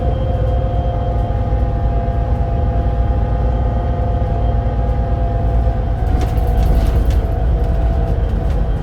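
Volvo B7RLE bus with a ZF Ecolife automatic gearbox under way: a steady low engine rumble with a whine from the driveline that sinks slightly in pitch. A short burst of rattling comes about six seconds in.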